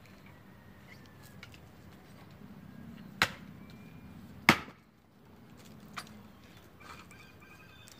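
Axe blows splitting an almond-tree log: two sharp chops about a second and a half apart, the second the loudest, then a lighter strike about a second and a half later.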